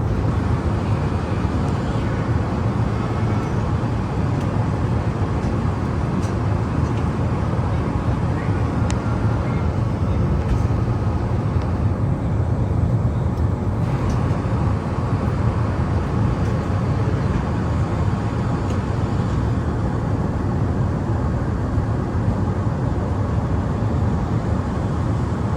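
Steady low rumble of an Airbus A380's engines and airflow heard inside the passenger cabin, holding at an even level.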